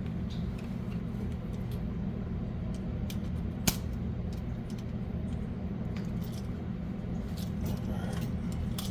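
Small clicks and rattles of wires and a GFCI outlet being handled during wiring, with one sharp click a little under four seconds in, over a steady low hum.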